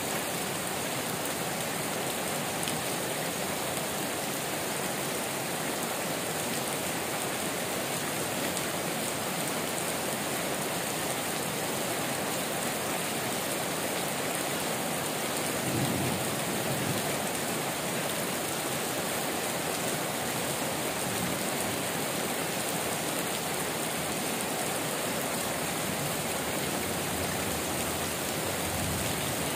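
Heavy tropical rain pouring steadily onto trees and corrugated metal roofs, an even hiss. About halfway through there is a brief low rumble.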